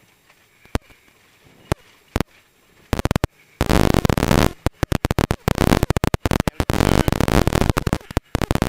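Harsh, distorted in-car noise from a Holden VP Commodore rally car at speed, chopping in and out many times a second. It is fairly quiet with a few sharp clicks for about the first three seconds, then loud.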